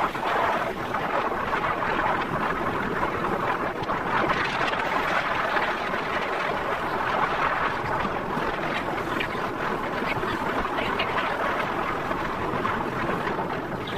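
Steady rush of a ride in an open vehicle on a road: the engine running, with air and tyre noise as it moves along.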